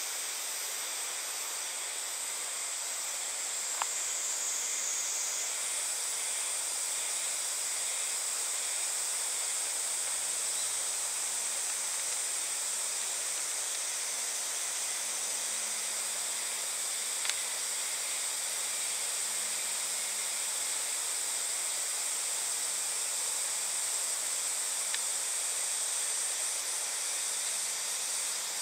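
Steady high-pitched chorus of insects in dense summer woodland, its pitch shifting slightly about five seconds in, with a couple of faint ticks.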